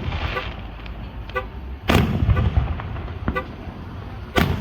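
Aerial fireworks shells bursting: two loud booms about two and a half seconds apart, each followed by a rolling rumble and crackle.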